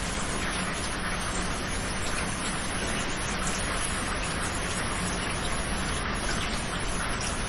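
Steady rain falling in a tropical forest, a dense even hiss with many separate drops pattering on the foliage.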